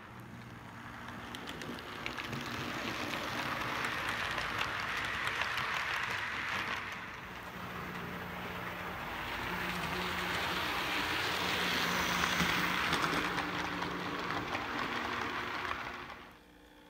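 Model train running on the layout's track: a steady rattling hiss of wheels over rail joints with a faint low motor hum. It grows louder and softer twice as the train passes, then drops away sharply near the end.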